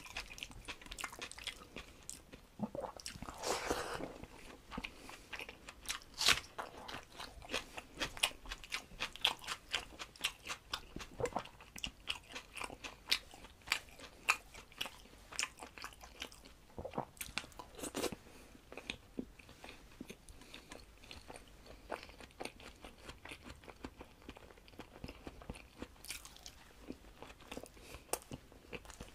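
Close-miked eating sounds of a man eating rice and curry with his hand: steady chewing with many short, wet clicks, and his fingers mixing rice on a steel plate.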